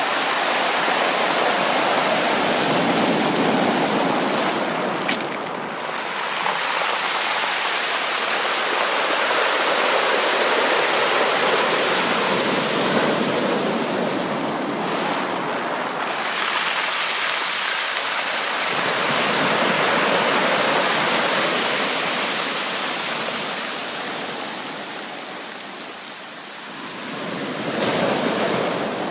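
Sea waves breaking on a beach: a continuous rush of surf that swells and ebbs, fading for a moment before another wave comes in near the end.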